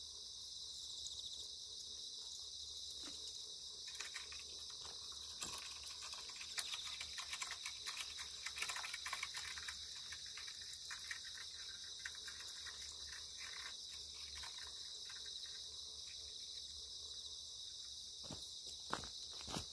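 Steady high-pitched chorus of crickets and other insects. Scattered light clicks and rustles from handling of the fishing rods and landing net come in from about four seconds in to about ten seconds in, and again just before the end.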